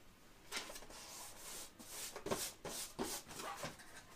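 Hands pressing and rubbing a paper shipping label flat onto a cardboard box: a run of dry rubbing and scraping strokes that starts about half a second in.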